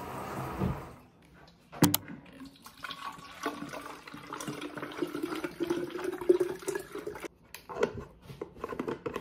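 Water poured from a pitcher into a wide-mouth plastic water bottle, the gurgle rising steadily in pitch as the bottle fills. A sharp knock comes about two seconds in, and the cap is screwed on with a few clicks near the end.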